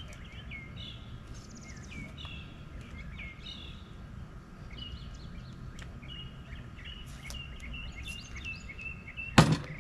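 Songbirds chirping repeatedly, with a steadier trill in the second half, over a steady low background rumble. A single sharp knock comes near the end and is the loudest sound.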